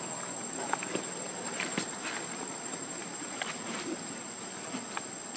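Insects singing in a steady, high-pitched drone, with scattered faint clicks and rustles over it.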